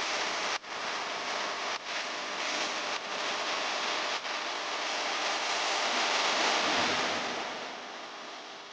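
Steady hiss of maida flour frying in hot oil in a pan, with a few short breaks where the clip is cut.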